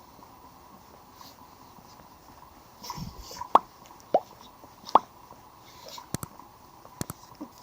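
Sea water plopping and lapping among the rocks of the shoreline: a few sharp, separate plops about three to five seconds in, then a few small clicks, over a faint steady background.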